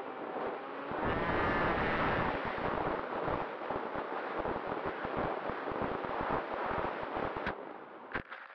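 Wind rushing and buffeting over the onboard camera of a foam RC flying wing in low, fast flight, with the propeller's whine rising and falling early on. Near the end a couple of sharp knocks come as it touches down in the grass, and the rushing dies away.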